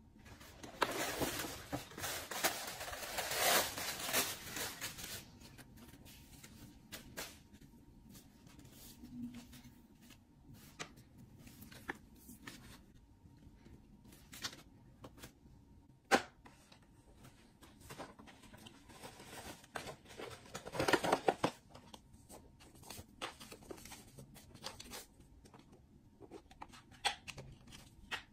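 Paper shopping bag and tissue paper rustling and crinkling as things are unwrapped and lifted out. There is a long burst of rustling at the start and another about twenty seconds in, with light taps and clicks from handling the bag and boxes in between.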